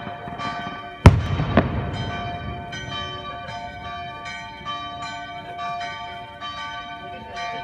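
Church bells pealing, many strikes overlapping and ringing on. A sharp firework bang about a second in, the loudest sound, with a second, smaller bang half a second later.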